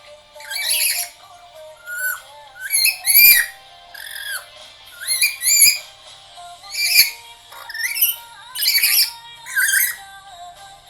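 Black-capped lory giving a string of short squawks and whistled calls, about one a second, some rising or arching in pitch, over a steady musical background.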